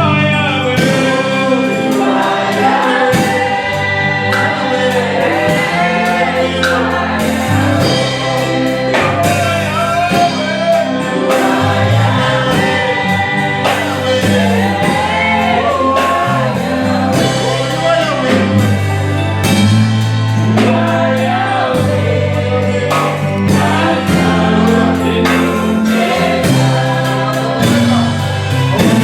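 Congregational gospel worship song: a choir of voices singing over a band with steady bass and a regular beat.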